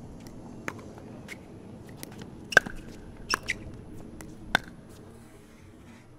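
Pickleball paddles striking a plastic ball during a rally: a string of sharp pops at uneven intervals, the loudest about two and a half seconds in.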